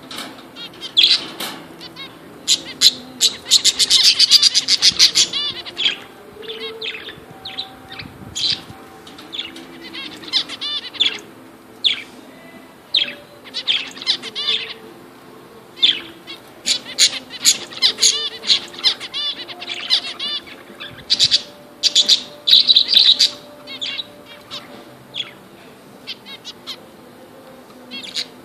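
Zebra finches calling: many short, high calls in irregular bursts, densest about four seconds in and again past the middle. Wings flutter as a finch bathes in a shallow water dish.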